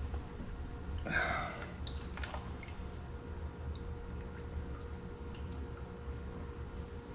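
Steady low shop hum with a faint high steady tone, a brief soft noise about a second in, and a few light clicks from handling the hydraulic fittings.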